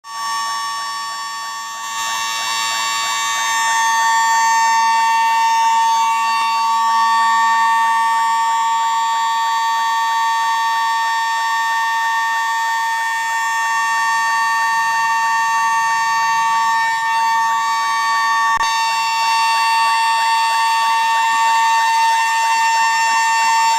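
Bank's electronic burglar-alarm siren sounding without pause: a steady, high-pitched tone with a fast, evenly repeating warble over it. It is going off on its own, set off by a short circuit caused by rain.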